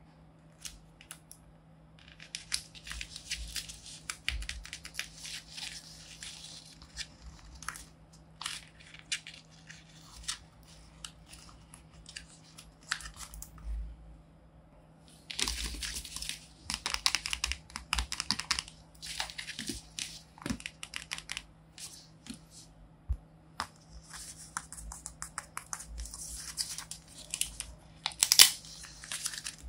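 Tape-covered paper crinkling and crackling as it is pressed and squeezed by hand, with fingernails clicking and tapping on the plastic surface, in bursts separated by short pauses; one sharp louder crackle near the end.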